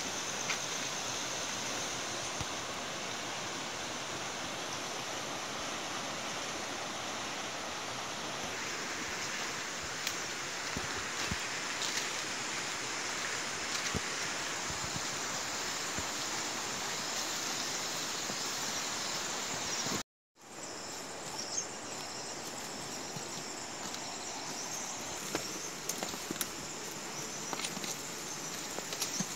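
Steady rushing of a stream, with a few faint clicks over it. The sound cuts out completely for a moment about two-thirds of the way through, then returns.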